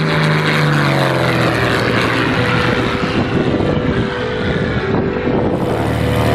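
Light single-engine propeller plane flying low past and climbing away, its engine note falling in pitch as it goes by. Near the end a steadier, lower engine note from a propeller aircraft running close by takes over.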